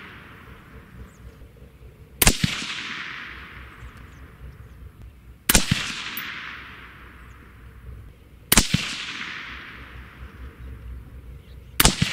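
Four shots from a suppressed AR-15 with a .223 Wylde barrel and Liberty Infiniti X suppressor, fired slowly about three seconds apart. Each is a sharp report followed by a fading tail that lasts over a second.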